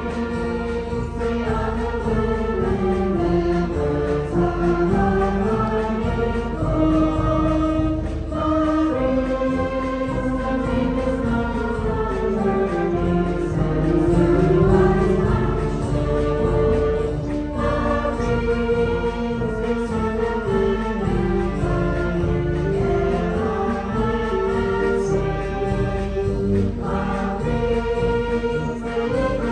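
Concert band and choir performing a march, the choir singing over the band.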